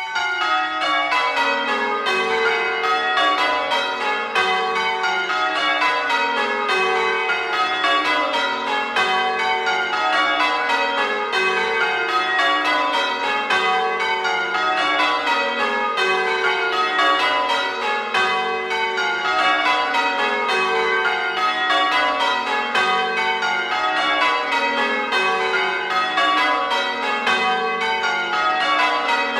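The restored church tower bells of St Mary's, North Creake, being rung full circle in change ringing. The bells strike one after another in descending rows from high to low, each row taking about two seconds, with the strokes ringing on into one another.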